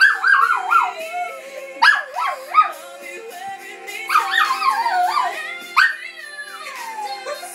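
Small dog howling along to recorded music: wavering high howls that start high and slide downward, in bouts about every two seconds, with the song playing underneath.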